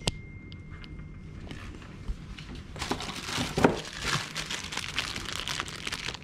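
A sharp click at the start, then plastic packaging bags crinkling and rustling as they are handled, starting about three seconds in.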